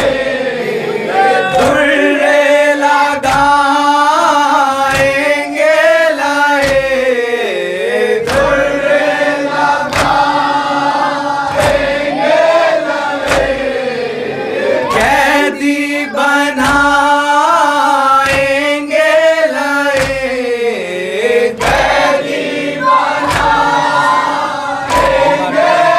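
Male mourners chanting a Shia noha lament together in long, drawn-out phrases, over a steady beat of open-handed chest-beating (matam), one sharp slap a little more than once a second.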